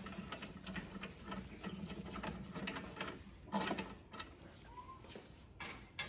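Hand ratchet clicking in quick runs as it backs out a 10 mm brake-line bracket bolt threaded into aluminium, with two louder metallic knocks in the second half.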